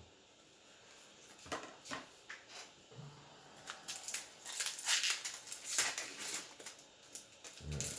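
Magic: The Gathering trading cards being handled and flipped through: a run of quick rustles and snaps, sparse at first and busiest in the second half.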